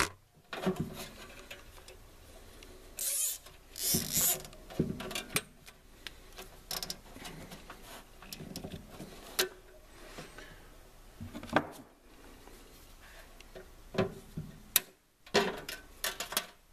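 Nylon zip ties being pulled through and cinched tight around a power cord: two short ratcheting rasps about three and four seconds in, among scattered clicks and handling knocks.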